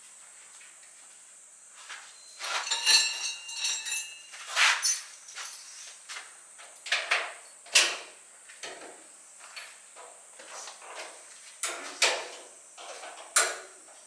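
Irregular knocks and clinks of objects being handled, a few with a brief ring, over a faint steady high hiss.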